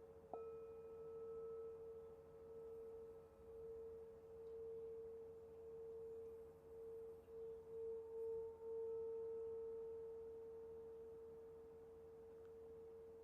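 A singing bowl struck once, its low tone ringing on with a slow wavering pulse and fainter higher overtones, then slowly fading.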